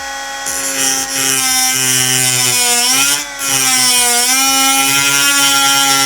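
Angle grinder running with its disc pressed against a ceramic keycap, a steady motor whine under a high grinding hiss. The motor pitch sags about three seconds in as the grinder bogs down under load. The hard ceramic barely gets cut and only heats up.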